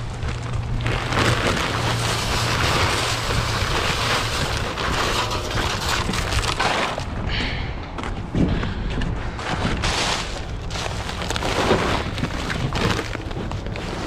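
Rock salt pouring and rattling from a bag into a broadcast spreader's plastic hopper: a steady, gritty rushing noise.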